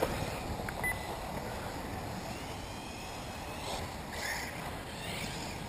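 Electric 1/8-scale RC off-road buggies racing: high motor whines glide up and down in the second half as the cars accelerate and brake, over a steady rush of background noise.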